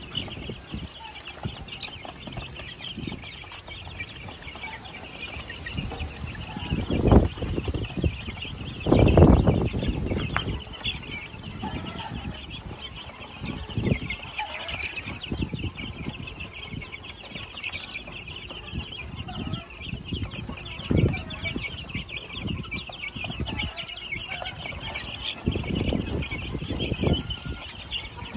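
A brood of young gamefowl chicks peeping continuously, many high, rapid cheeps overlapping into a steady chorus. A few dull thumps and knocks break in, the loudest about a third of the way through.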